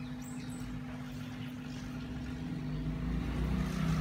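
Hot air blower (heat gun) running steadily with a whirring hum, blowing hot air over a phone's cracked display to loosen it for removal; it gets a little louder toward the end.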